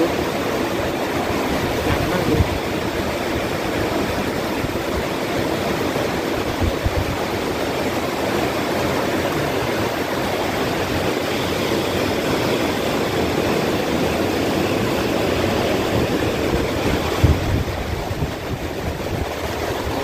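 Torrential rain and strong wind of a violent storm: a steady, dense rush of downpour, with gusts buffeting the microphone a few times.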